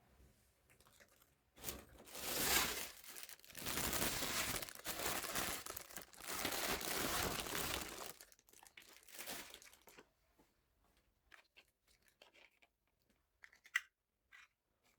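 Plastic packaging being torn and crinkled in four long stretches over about eight seconds. Afterwards there are a few faint clicks and one sharper click near the end.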